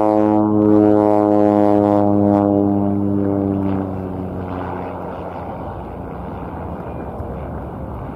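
Propeller of a single-engine amphibious floatplane on landing approach, a steady low buzzing drone. About three seconds in the tone fades and a quieter, rougher rushing engine noise takes over.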